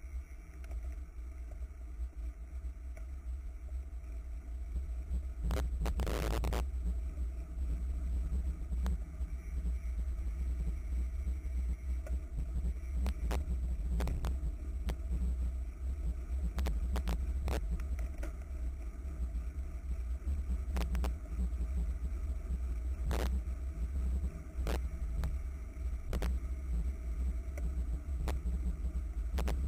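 Wind rumbling on a bicycle-mounted camera's microphone while riding in a road race, with scattered sharp knocks and rattles from the mount over road bumps. A short, louder burst of noise about six seconds in.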